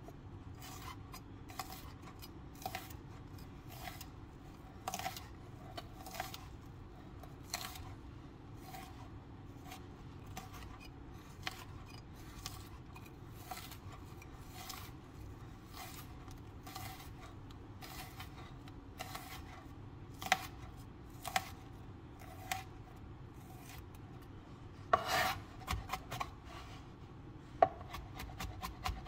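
A chef's knife slicing and then dicing garlic cloves on a plastic cutting board. Separate knife taps come one or two a second, with a brief dense run of knife noise about three-quarters through, then quicker chopping of about four strokes a second near the end as the garlic is minced.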